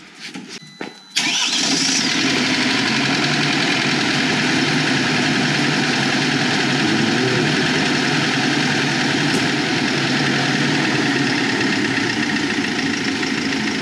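Freshly rebuilt Mercedes OM651 2.2 CDI four-cylinder diesel in a Vito W639 starting up cold after a few light clicks, catching about a second in and then idling steadily. It runs nicely on this first start after the overhaul.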